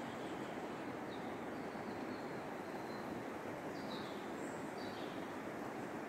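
Steady outdoor rushing noise, like a stream or wind in the trees, with a few faint, high bird chirps about a second in and again around four to five seconds.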